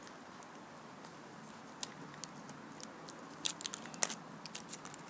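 Sellotape being picked at with fingernails and peeled off a plastic surprise-egg capsule: scattered small clicks and crackles, coming thicker about three and a half seconds in.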